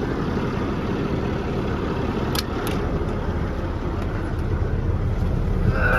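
Engine of a running farm vehicle, a steady low rumble, with two faint clicks about two and a half seconds in.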